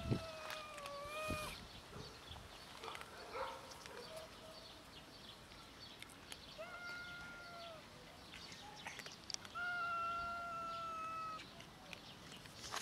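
A hungry stray cat meowing: three drawn-out meows, the last one about ten seconds in being the longest and loudest. A sharp click right at the start, and small clicks in between.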